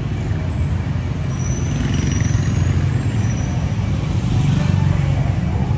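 Steady low rumble of street traffic, with a few short, faint high-pitched whines in the first few seconds.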